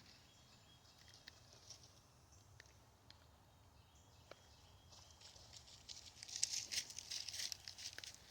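Footsteps crunching and rustling through dry leaves and brush. The first few seconds are almost still, with a few faint ticks; the crunching steps pick up again about five and a half seconds in.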